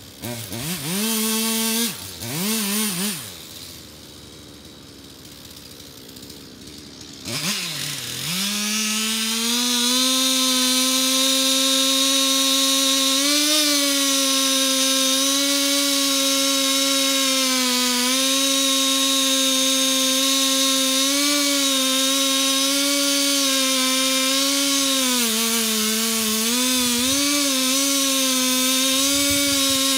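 Two-stroke chainsaw blipped twice in short revs, dropping back to a quieter idle, then opened up at about eight seconds and held at full throttle cutting into the base of a standing tree, its pitch sagging a little now and then under load.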